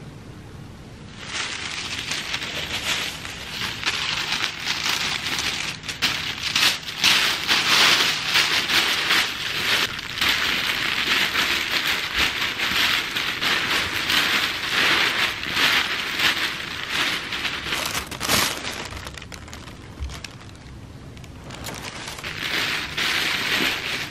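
Tissue paper rustling and crinkling as it is handled and stuffed into a canvas tote bag. The crackle starts about a second in, eases off briefly near the end, then picks up again.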